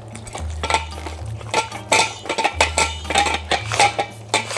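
Italian greyhounds lapping water from bowls: quick wet laps about three a second, with the bowls clinking. A steady bass line of background music plays underneath.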